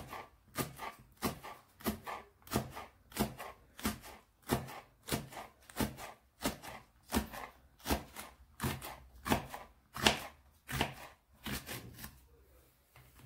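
Kitchen knife slicing a green hot chili pepper into rings on a plastic cutting board: a steady run of knife taps against the board, a little under two a second, stopping near the end.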